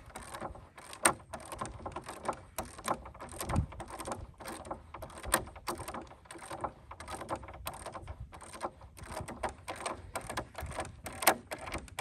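Irregular run of small metal clicks and rattles, several a second, as the nut on a wheelchair wheel's 5/8 axle bolt is tightened against its washers.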